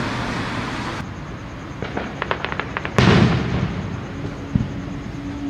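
Aerial fireworks going off: the rumble of a shell burst fades, a quick run of sharp crackles follows about two seconds in, then a loud boom about three seconds in that dies away, and a single pop a little later.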